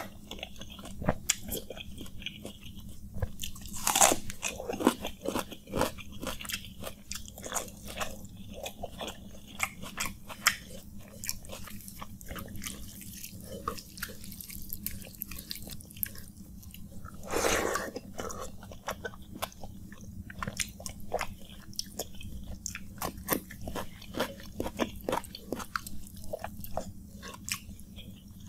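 Fingers mixing and squeezing panta bhat (rice soaked in water) in a clay bowl, close up: a dense run of small wet clicks and squishes. Two louder ones come about four seconds in and at about seventeen seconds.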